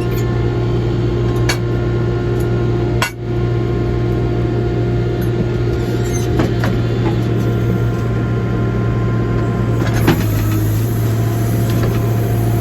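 Backhoe's diesel engine running steadily at a constant pitch while digging, with a few sharp knocks scattered through it.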